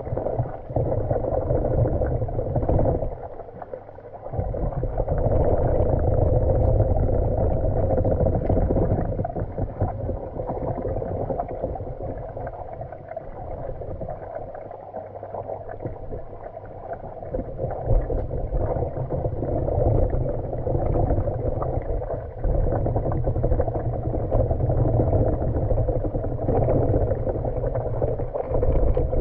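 Muffled underwater rumble and gurgling as a manual pool vacuum head on its suction hose is pushed across the tiled pool floor, recorded with the camera submerged. The noise runs on with a short dip about three seconds in.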